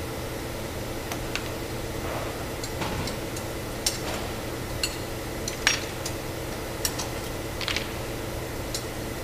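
Metal parts and tools being handled on a rigid box machine during a format changeover: scattered, irregularly spaced metallic clicks and clinks over a steady machinery hum.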